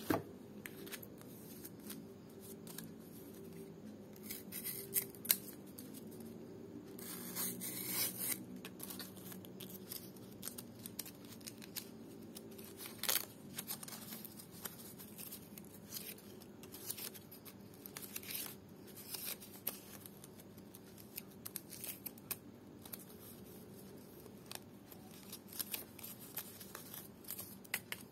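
Cutter knife cutting and scraping through a dried lontar (ental) palm-leaf strip: an irregular string of short, crisp snicks and scratches with some rustling of the leaf in the hands.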